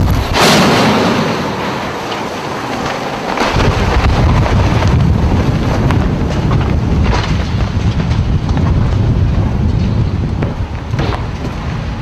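Severe storm wind buffeting the microphone: a loud, continuous low rumble that swells and eases with the gusts.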